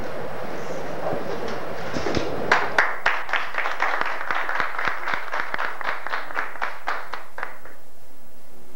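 A small group of people clapping by hand for about five seconds. It starts about two and a half seconds in and dies away near the end.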